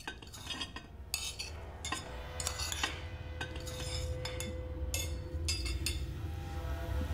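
Cutlery and a serving spoon clinking against plates and a serving dish: a string of separate sharp clinks, one of them left ringing for a couple of seconds, over a low rumble that slowly swells.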